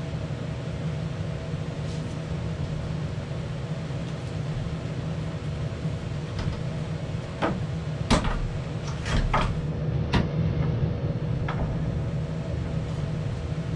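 A steady low mechanical hum throughout, with a handful of sharp knocks and clunks between about seven and twelve seconds in, like metal parts or tools being handled on a workbench.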